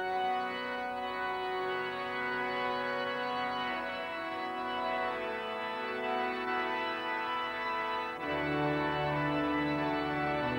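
Organ music: slow, sustained chords that change every second or two, with deep bass notes coming in about eight seconds in and the music growing a little louder.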